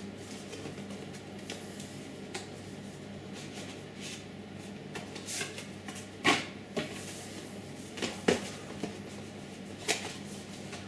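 Cardboard packaging being handled and opened: an outer sleeve slid off the boxes, with soft scraping and rustling and a few sharp taps of cardboard, loudest about six seconds in and again near eight and ten seconds.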